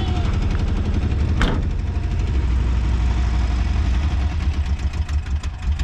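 Volkswagen Kombi engine idling steadily, with one sharp click about one and a half seconds in.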